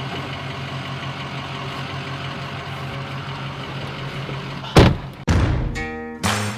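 Ford Super Duty pickup's engine idling steadily, heard from inside the cab. Nearly five seconds in, a loud thump hits and music begins.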